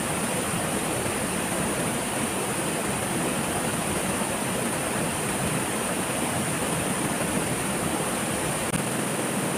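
Steady rushing of a waterfall: a constant, even roar of falling water.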